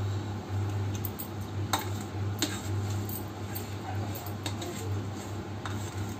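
A perforated steel spoon scraping and tapping against a steel plate as it presses and spreads a thick, crumbly chana dal barfi mixture, with a few sharp clinks. A steady low hum runs underneath.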